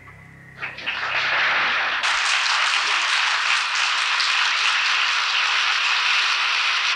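Large theatre audience applauding: the clapping breaks out about half a second in as the music ends, swells to a loud, steady ovation within a couple of seconds, and cuts off abruptly at the end.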